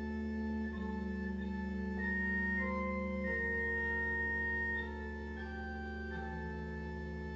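Church organ playing slow held chords, the notes changing every second or so, with a steady low bass under them.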